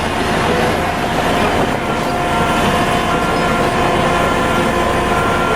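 Steady heavy-vehicle machinery noise: a dense rumble with a few held tones that starts and cuts off abruptly, a sound effect laid over a toy wheel loader.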